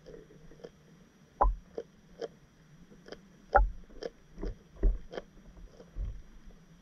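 Irregular muffled knocks and low thumps, about one or two a second, heard through a camera under water; the loudest come about a second and a half in, and again around three and a half and five seconds in.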